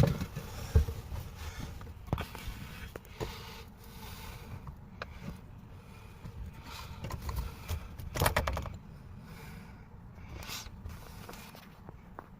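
Scattered clicks, knocks and light scrapes of small hard parts being handled, with a quick cluster of clicks and a dull knock about eight seconds in.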